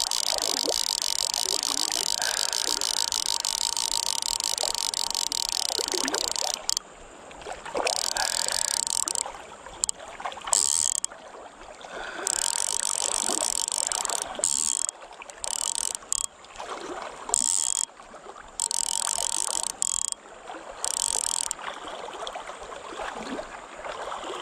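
Click-and-pawl drag of a Redington Zero fly reel buzzing while a hooked lampam is played. It runs as one continuous buzz for about the first seven seconds, then breaks into a series of short bursts of clicking, with river water running underneath.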